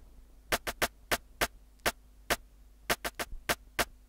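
Programmed rim-shot and snare samples playing back in FL Studio, a syncopated Afrobeat drum pattern of about a dozen sharp, clicky hits, with the rim panned left and the snare panned right. A faint mains hum runs underneath.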